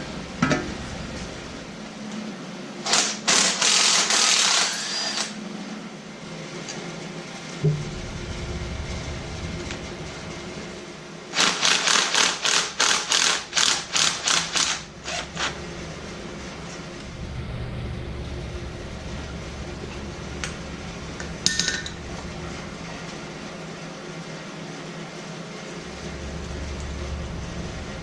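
Tool work on a dirt-bike teardown: a power tool runs for about two seconds some three seconds in, then comes a run of rapid, evenly spaced rattling strokes around twelve seconds in, then a short sharp knock near twenty-one seconds, over a steady low background hum.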